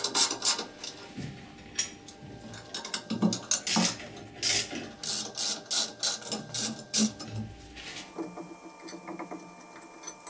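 Ratchet wrench on a socket extension clicking in short quick runs as a bolt at the base of the drill press motor is worked loose; the clicking stops about eight seconds in, leaving faint handling sounds.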